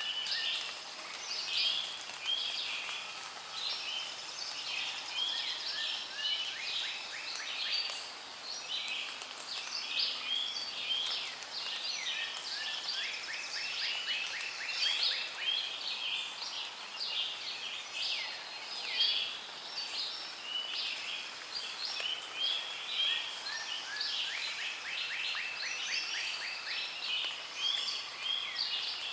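Many birds singing and calling at once: a dense, continuous chorus of short chirps and whistles, with fast rattling trills twice in the middle and near the end.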